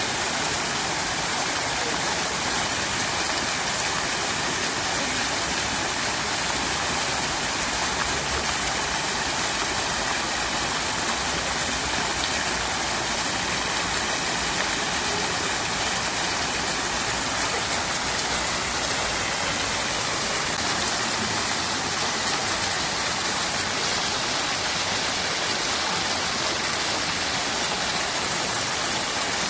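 Fountain water splashing and trickling steadily.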